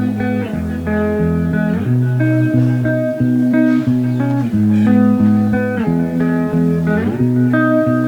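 Instrumental background music led by plucked guitar, with a bass line that changes notes about once a second.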